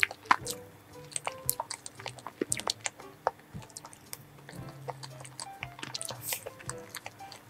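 Close-miked chewing and mouth sounds of someone eating soft pistachio mousse cake, with many short sharp clicks throughout, over background music.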